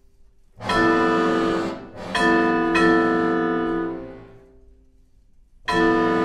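Chamber ensemble of viola, accordion, oboe, piano and percussion playing loud held chords that start suddenly and die away into near-silent pauses. Chords enter about half a second in and again at about two seconds, fade out by about five seconds, and a new chord enters near the end.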